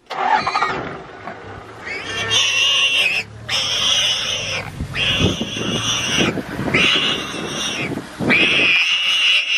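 Warthog squealing in distress while a lioness grips it by the head and neck: a run of about five long, high squeals, each over a second, with short breaks between them.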